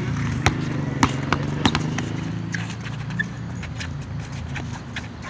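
A basketball bouncing and players' sneakers striking an outdoor asphalt court: several sharp knocks in the first two seconds, then fainter, scattered ones, over a steady low hum.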